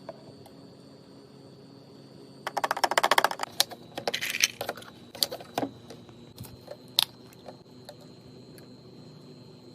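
A quick, dense rattle of small hard items clattering together for about a second, followed by a brief rustle and a few separate clicks and clinks. A steady low hum with a faint high whine sits underneath.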